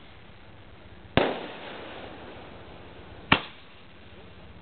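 Two aerial fireworks bursting about two seconds apart: each a sharp bang with a fading tail, the first tail more drawn out.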